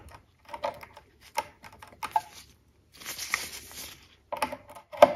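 A run of sharp plastic clicks and taps as a USB flash drive is fumbled into a resin 3D printer's USB port by a gloved hand, with a stretch of rustling about three seconds in.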